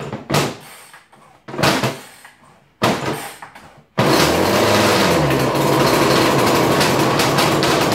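Brand-new Stihl KM56 Kombi two-stroke engine being pull-started cold on full choke: three quick recoil-starter pulls, then it catches on the fourth pull about four seconds in and runs steadily, its pitch briefly rising and falling just after it fires.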